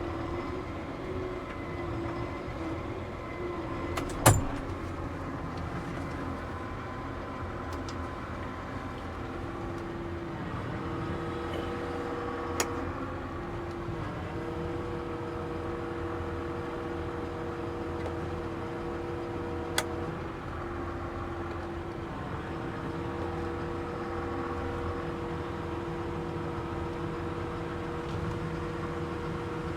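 New Holland T7.315 tractor's six-cylinder diesel running steadily under way, with a steady whine that drops out briefly a few times. A sharp click comes about four seconds in, and fainter clicks come twice later.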